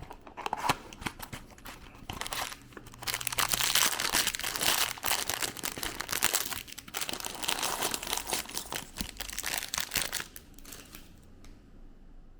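Packaging for a building-block set being crinkled and torn open: a few clicks, then a long stretch of dense crackling and rustling that stops about a second before the end.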